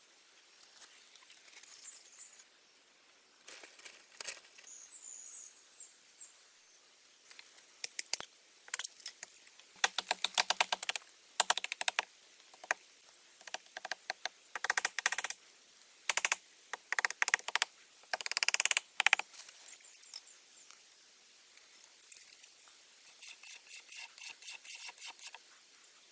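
Large knife chopping and shaving a thin wooden stick against a log: rapid runs of sharp taps, loudest in the middle, then a lighter, even run of taps near the end.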